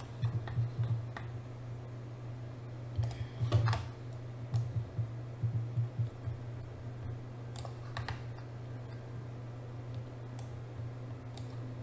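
Scattered clicks from a computer mouse and keyboard, a dozen or so spread unevenly with a denser cluster about three seconds in, over a steady low hum.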